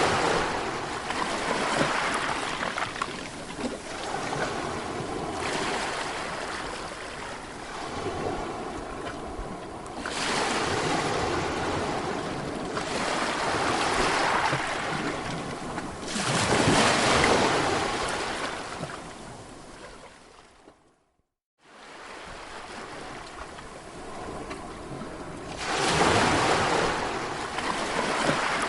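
Sea waves breaking and washing ashore, the surf swelling louder every four to six seconds. About two-thirds of the way through, the sound fades and drops out to silence for under a second before the surf resumes.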